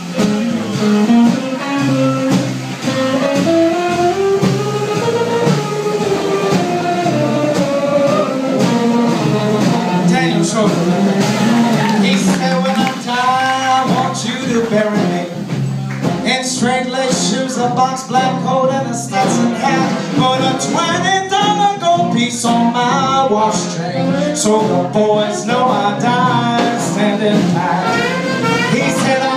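Live trad jazz band playing: upright bass, drums and guitar under a wavering lead melody line that grows busier about halfway through.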